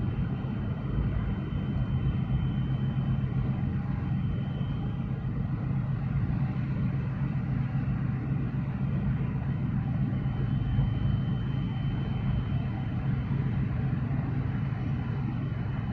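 Steady low rumble of a large container ship's engine and machinery as the ship passes close by, with a faint thin high tone above it.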